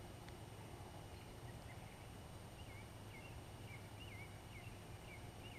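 Quiet ambience with a low steady hum and a series of faint, high chirping calls from a small animal, repeating two or three times a second from a bit over a second in.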